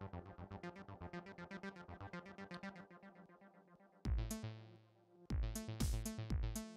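Electronic background music: fast repeated synthesizer notes, then about four seconds in, loud drum hits with deep bass come in.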